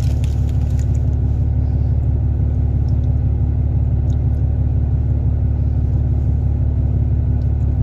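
A steady, loud low rumble with a constant hum, and a few faint clicks over it.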